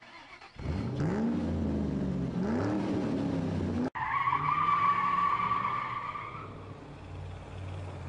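Intro sound effect of a car engine revving up and down twice, cut off suddenly about four seconds in by a steady tyre screech that fades out after a couple of seconds, leaving a low engine rumble.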